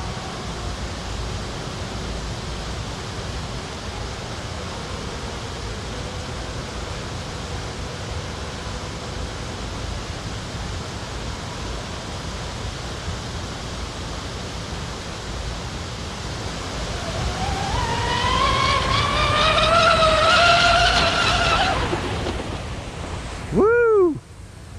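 Steady wind and water hiss. About two-thirds of the way in, the high whine of an electric RC speed catamaran's motor and propeller rises in pitch and loudness as the boat accelerates past on a speed run, then fades. Near the end comes a brief, loud tone that falls in pitch.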